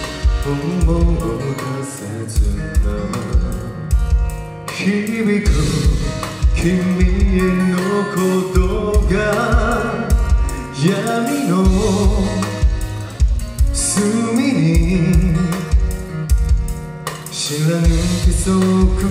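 A male singer performing a Japanese pop-rock song live through a handheld microphone, over amplified accompaniment with drum kit and guitar keeping a steady beat.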